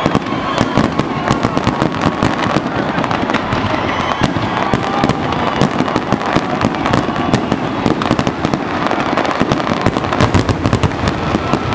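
Fireworks display: a dense, unbroken barrage of shell bursts and crackle, many sharp reports a second without a pause.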